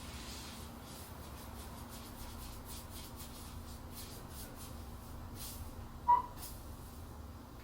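Low steady hum of a portable car fridge's LG compressor running on test after repair for an F6 error. One short electronic beep sounds about six seconds in.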